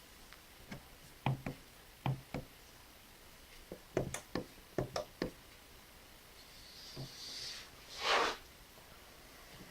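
Coins going into a homemade Arduino coin bank and sorter: a series of irregular knocks and clicks as they drop through. A short rushing swish about eight seconds in is the loudest sound.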